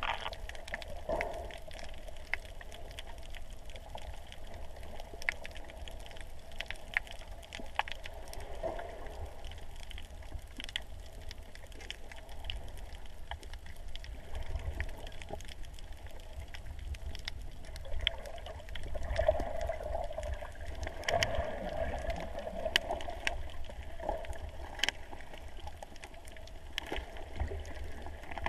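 Underwater sound picked up through a GoPro's waterproof housing: muffled water movement with a low rumble and many scattered sharp clicks and crackles, swelling louder about two-thirds of the way through.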